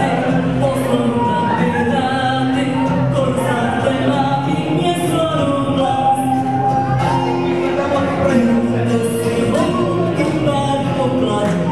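Loud music with singing, played through PA loudspeakers.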